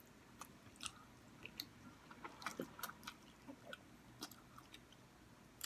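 Close-up eating sounds of noodles: soft, irregular mouth clicks, smacks and slurps, a few a second.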